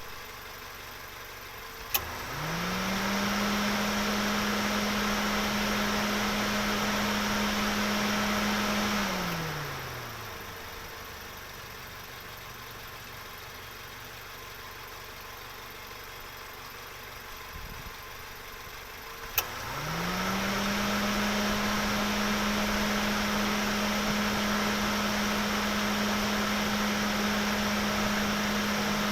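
Car engine sound effect: a sharp click, then the engine winds up to a steady pitch and runs evenly for about six seconds before winding down, over a constant background rumble. After a lull, a second click and the engine winds up again and holds steady to the end.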